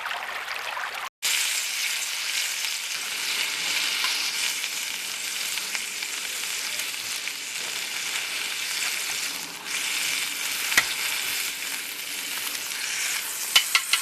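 Chicken of the woods mushrooms frying in butter in a cast iron skillet: a steady sizzle that starts suddenly about a second in, with a few sharp pops near the end.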